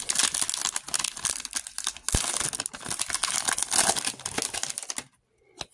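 Foil wrapper of a Select football trading-card pack crinkling and tearing as it is opened and the cards are pulled out. A dense crackle lasts about five seconds, then stops.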